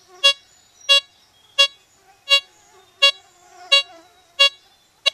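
Blisstool LTC64 metal detector sounding short, evenly spaced beeps, about one every 0.7 seconds, each one its target tone as the coil sweeps back and forth over a buried target.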